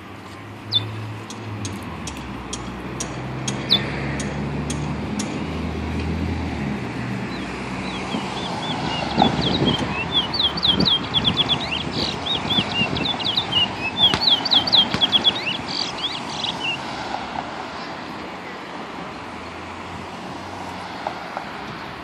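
A caged black songbird singing a long, rapid run of short, high chirps from about eight seconds in until about seventeen seconds in. Road traffic rumbles by in the first few seconds.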